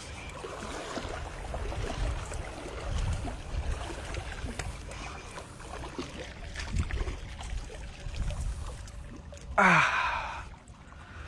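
Wind rumbling on the microphone over water washing against shore rocks. Near the end, a loud, short breathy voice sound falling in pitch, a person's gasp or sigh.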